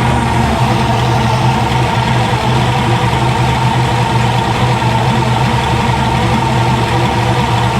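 A 454 big-block Chevrolet V8 idling steadily with its vacuum advance connected, while its ignition timing is checked.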